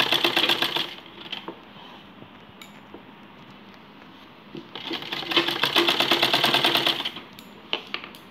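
Domestic straight-stitch sewing machine running in two short rapid bursts, separated by a pause of a few seconds, as it stitches a bias strip onto a neckline. A few sharp clicks follow near the end.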